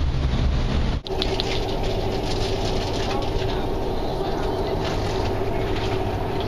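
Steady drone of the Alaska ferry Chenega under way, heard on its open deck, with a steady machinery hum over the rushing noise. The sound breaks off abruptly about a second in and resumes with a slightly different balance, as at an edit cut.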